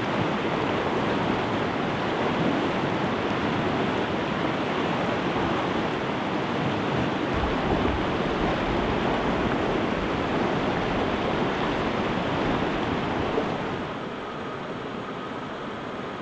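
Fast, rocky river rushing over stones in a steady roar of water. About thirteen seconds in it gives way to a quieter steady hiss from a camp stove's gas burner under a cooking pot.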